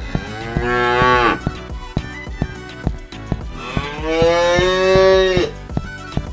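Cow mooing twice, a short moo and then a longer one, over a fast, steady run of sharp clicks.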